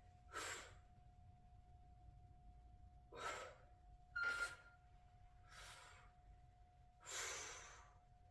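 A woman's hard, audible breathing during a kettlebell curl, press and tricep extension: five breaths a second or two apart, the last one longer and louder, over a faint steady hum.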